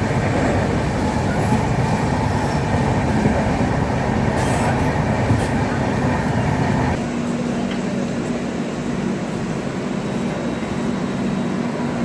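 Express passenger train running on the rails, a steady noise of wheels and carriages. About seven seconds in the sound changes abruptly to a slightly quieter run with a steady hum.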